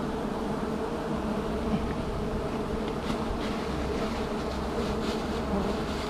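A dense swarm of wild honeybees buzzing around their exposed comb: a steady, even hum.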